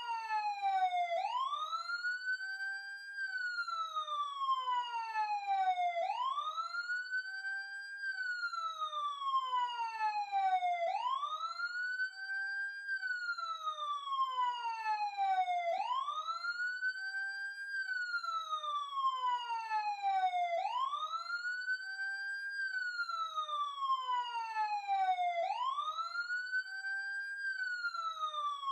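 Police car siren wailing steadily: each cycle rises quickly in pitch, then falls slowly, repeating about every five seconds, six times over.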